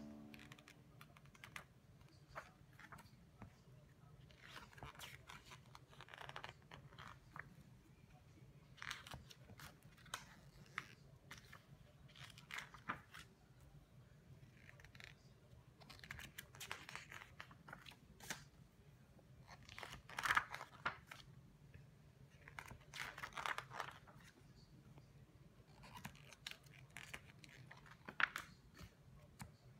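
Pages of a large illustrated book being turned one after another: faint, irregular paper rustles and swishes, the strongest about two-thirds of the way through.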